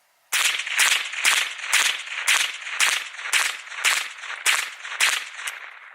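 Ruger 10/22 semi-automatic .22 LR rifle firing a full magazine in rapid succession, about ten sharp shots at roughly two a second with a short echo after each. The shots run through without a stoppage.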